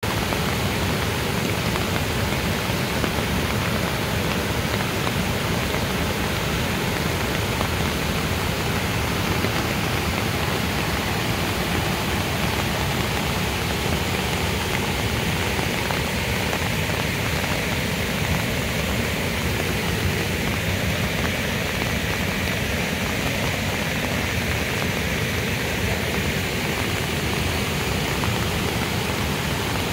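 Steady rushing of floodwater pouring across and over the edge of a road, mixed with falling rain.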